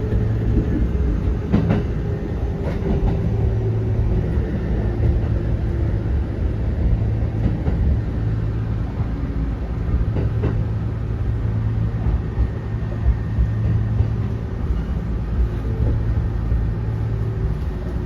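Kintetsu 1810 series electric train running, heard inside the car: a steady low rumble with a few sharp rail-joint clicks and a motor whine that slowly falls in pitch as the train slows for a station.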